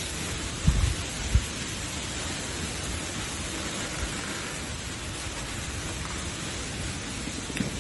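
Steady hissing noise, like rain, rushing water or wind on an outdoor microphone, with a few low thumps about a second in and again near the end.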